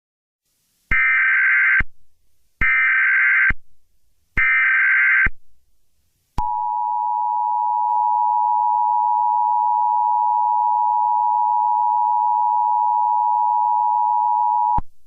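Emergency Alert System header and attention signal: three one-second bursts of SAME data tones, then the steady two-tone EAS attention tone (853 and 960 Hz) held for about eight seconds and cut off suddenly.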